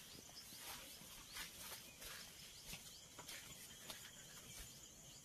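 Faint footsteps on a dirt path, about one or two a second, with small high bird chirps and a thin steady insect whine joining in the second half.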